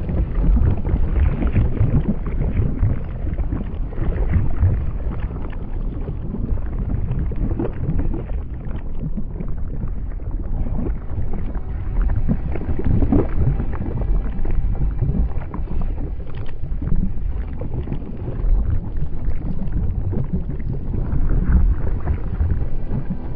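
A loud, steady low rumbling noise that swells and eases without any rhythm or tune.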